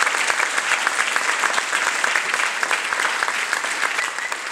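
Audience applauding: dense, steady clapping from a crowd, easing off slightly near the end.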